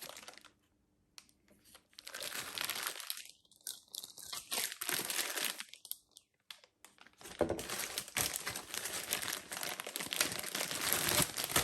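Packaging crinkling and rustling in irregular bursts as a new cordless angle grinder is unwrapped and lifted out of its box.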